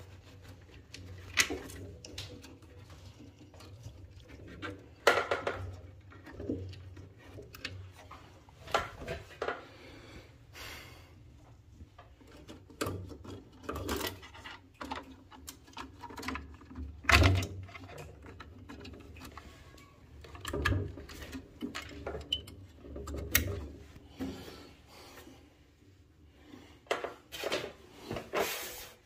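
Irregular clicks, taps and knocks of hands working on the parts and wiring inside a Worcester Bosch Greenstar 12i boiler's casing, around its fan.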